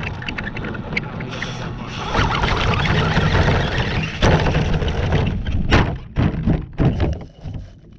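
An RC car running flat out with a dense rushing noise, then several hard knocks a few seconds later as it lands and tumbles, the noise dying away near the end.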